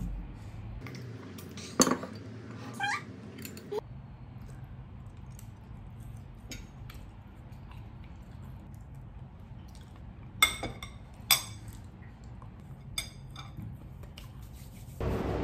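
Tableware at a meal: chopsticks and a knife clinking against ceramic plates and bowls, a few sharp clinks, the loudest about two seconds in and others around ten to thirteen seconds in. A short squeak that slides down in pitch comes about three seconds in.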